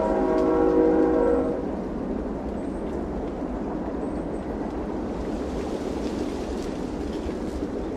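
A distant horn holding a steady chord of several tones, which cuts off about a second and a half in, leaving a steady rushing noise.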